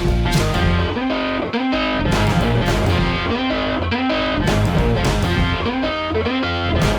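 Background rock music with distorted electric guitar over a steady beat.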